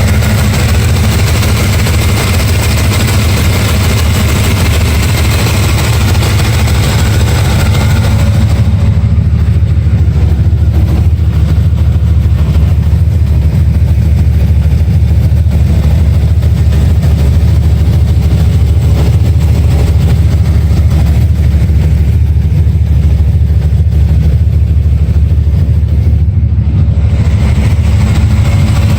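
Car engine running steadily at idle, heard loud and close up, with dense low-pitched rumble. It is the engine in which a ticking noise is being tracked down. About a third of the way in, the higher sounds drop away and the engine sounds duller until near the end.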